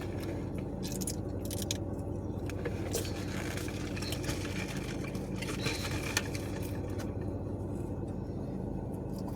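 A steady low mechanical hum under scattered small clicks and scrapes.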